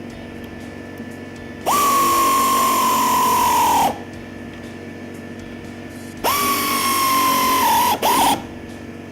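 3/8-inch air ratchet running in two bursts of about two seconds each, with a high whine that sags slightly in pitch under load, then a short tap on the trigger just after the second. It is running down the flange nuts that draw a backing block down onto a poly fender bracket.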